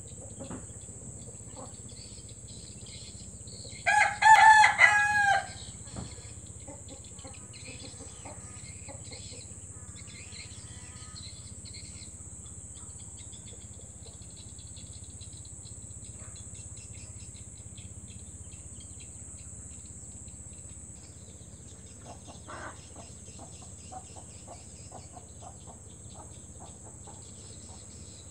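Village rooster crowing once, loudly, about four seconds in, for about a second and a half. Softer clucks and short calls from the chickens follow, and come again later.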